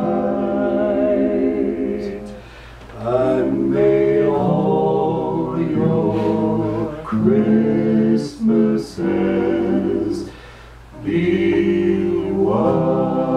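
Male barbershop quartet singing in close four-part harmony, holding long chords. The singing drops away briefly about two seconds in and again about ten seconds in.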